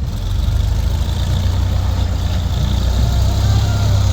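Heavy diesel engine running steadily with a deep, low rumble, getting slightly louder just after the start.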